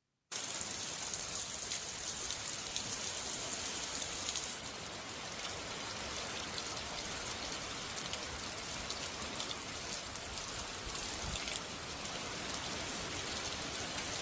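Heavy rain falling steadily, pattering on hard surfaces. It starts abruptly a moment in.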